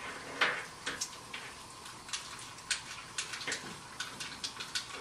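Faint, irregularly spaced light clicks and taps, about a dozen over a few seconds, over quiet room tone.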